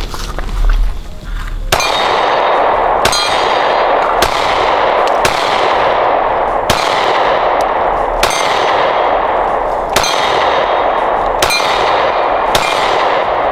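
SIG P365 pistol fired in slow, steady succession, about ten shots roughly a second or more apart. Each shot is followed by the ringing ding of a hit on a steel target.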